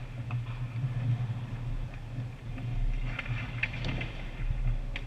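Ice hockey play around the goal: skates scraping and sticks and puck clacking on the ice, with a cluster of sharp clacks about three to four seconds in, over a steady low hum in a large, echoing arena.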